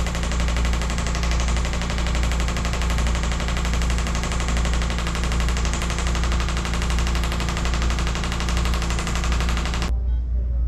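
Radial shockwave therapy applicator firing rapidly against the back: a steady, fast train of sharp taps, from a projectile striking a metal drum, over a low hum. The tapping stops abruptly near the end.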